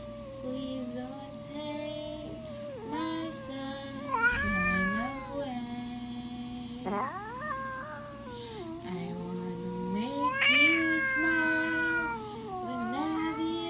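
Domestic cat meowing several times in drawn-out, wavering calls, loudest about four seconds in and again just past ten seconds, over a soft background tune of held notes.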